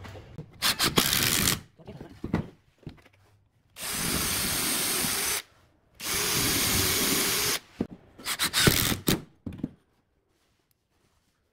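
Cordless drill boring holes into a pine chair leg: two steady runs of about a second and a half each, with short irregular knocks before and after.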